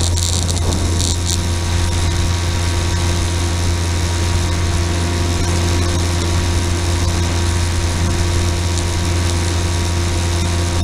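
Motor and propeller of an FPV model aircraft heard through its onboard camera: a steady low drone with fainter whining tones at constant throttle. A crackling hiss fades out about a second in.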